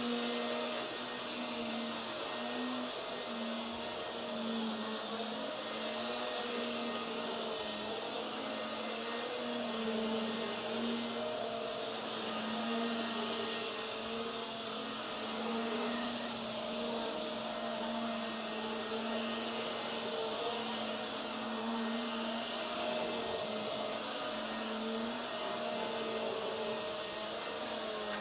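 Hoover WindTunnel Tangle Guard upright vacuum running with its brush roll on: a steady high whine over a motor hum whose pitch wavers slightly.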